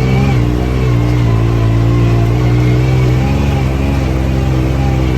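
Ford Coyote 5.0 V8 engine running steadily at moderate revs, its pitch wavering slightly.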